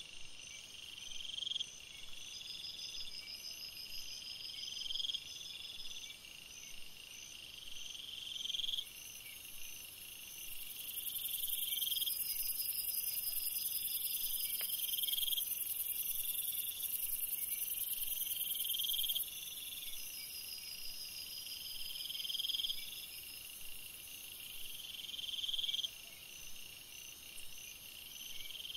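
Night insects calling together. One gives a rising buzz about a second and a half long that swells and cuts off, repeated every three to four seconds, over faster, quieter trills. A louder, very high-pitched hiss joins about a third of the way in and stops about two-thirds through.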